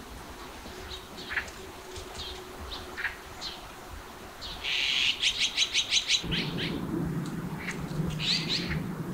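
Wild birds chirping with short, scattered calls, then one bird's loud, rapid call of about eight sharp notes a second, lasting about a second and a half, around five seconds in. A low steady hum comes in about six seconds in.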